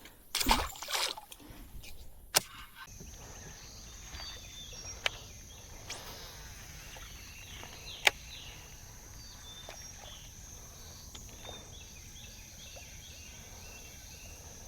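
Quiet outdoor swamp ambience: a steady high-pitched drone with short chirps above it, a low background hiss, and a few sharp clicks, one about two seconds in and others around five and eight seconds.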